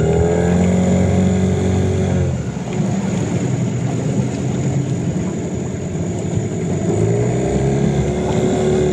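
Mercury tiller outboard motor on an inflatable coach boat running, revving up and holding for a couple of seconds at the start, easing off, then revving up again about seven seconds in.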